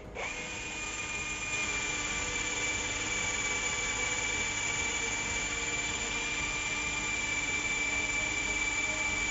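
HUJIA Pro 21321 brushless cordless drill boring into a wooden plank with a 19 mm spade bit, its motor running steadily under load with a constant high whine. The drill is in its first, low-speed gear.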